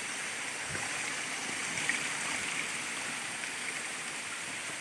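Steady, even rush of running water from a mountain stream.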